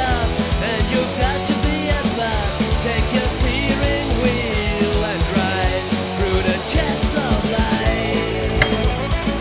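Rock music with drums, guitar and singing.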